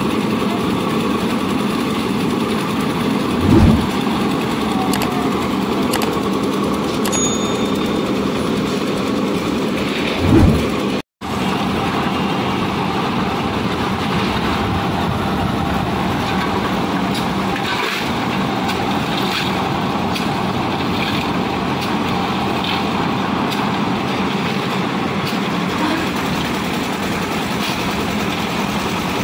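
Lift-type drum concrete mixer machine running steadily under its engine. Two brief low thumps come about three and a half and ten and a half seconds in, and the sound cuts out for a moment just after the second.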